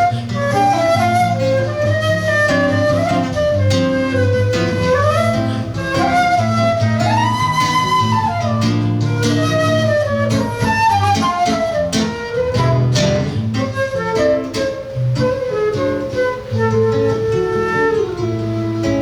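Live acoustic music: a flute melody moving up and down, with one long held note partway through, over plucked acoustic guitar accompaniment.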